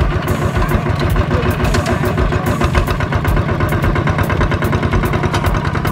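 Kubota ZT155 walking tractor's single-cylinder diesel engine idling, a fast, even chugging.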